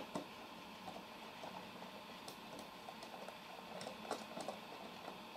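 Hand screwdriver working a screw into a wooden box panel: faint scattered clicks and light scrapes, a few a second in places, over a steady faint hum.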